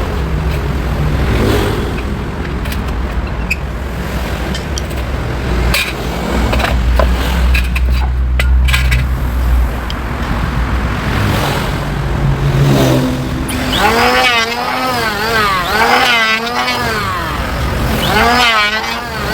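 Electric hand planer running and cutting across a wooden cutting board, a steady machine rumble with scattered knocks. In the last few seconds its motor pitch repeatedly dips and rises, about once a second.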